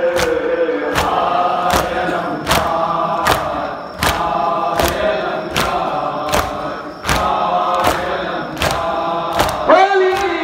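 Crowd of Shia mourners chanting a noha in unison while beating their chests (matam) in a steady rhythm, about one slap every three-quarters of a second. A rising shout breaks in near the end.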